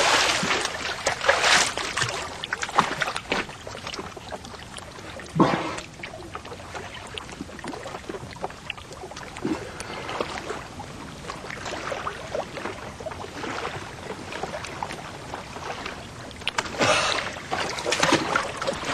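Seawater sloshing and splashing inside a rock crevice, with louder surges of splashing at the start, once about five seconds in, and again near the end.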